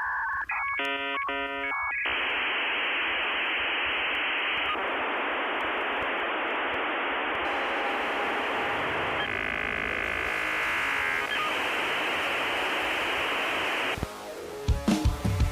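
Dial-up modem handshake over a telephone line: a quick sequence of paired tones, then a long harsh hiss with a stretch of warbling tones partway through. It cuts off near the end, and rock music with drums and guitar kicks in.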